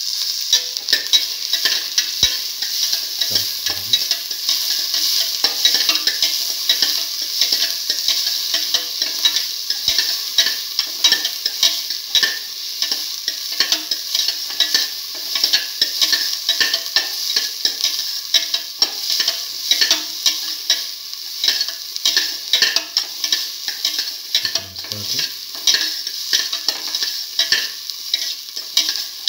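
Sliced onions and shallots sizzling in hot oil in a stainless steel pan, stirred with many quick scraping strokes against the pan, the start of sautéing the raw onions.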